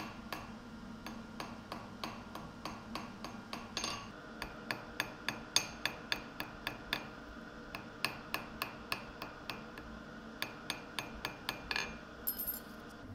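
Cross-peen hammer tapping small pieces of copper on a steel anvil: light, even blows at about three a second with a short pause partway through, and a brief high clink near the end.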